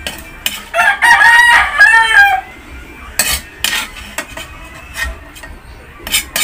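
A gamecock rooster crows once, loud, starting about a second in and lasting about two seconds. Around it a metal spoon clinks and scrapes against a steel wok and plate.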